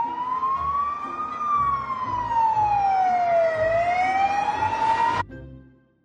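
Ambulance siren wailing: a slow rise in pitch, a long fall, then another rise, cutting off suddenly about five seconds in.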